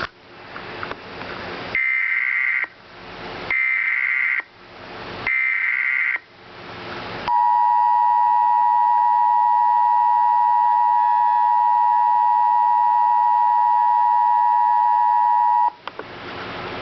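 Emergency Alert System header: three short bursts of data tones (the SAME code), with hiss between them. Then comes the EAS two-tone attention signal, a steady two-pitch tone held about eight seconds that cuts off shortly before the end.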